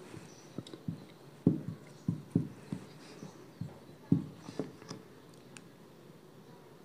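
Marker pen writing on a whiteboard: a run of soft, irregular taps as the tip strikes and lifts from the board, with a few faint short scratches. The taps thin out toward the end.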